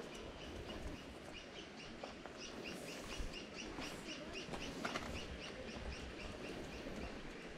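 A bird calling in a fast, even series of short, high chirps, about four a second, that goes on with little break.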